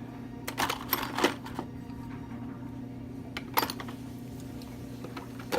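A few scattered light clicks and knocks, irregularly spaced, over a steady low hum.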